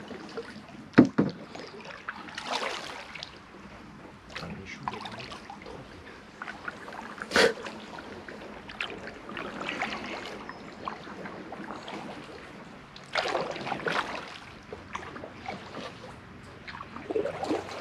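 Kayak paddle strokes: the blades swishing and splashing through the water every few seconds, with a few sharp knocks, the loudest about a second in and another about seven seconds in.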